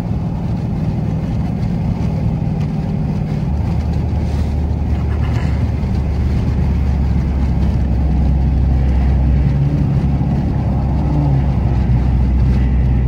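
Dodge Charger SRT8's HEMI V8 exhaust droning steadily under way, with a low, even drone. The bottom end gets stronger about three and a half seconds in and the whole sound grows a little louder in the second half.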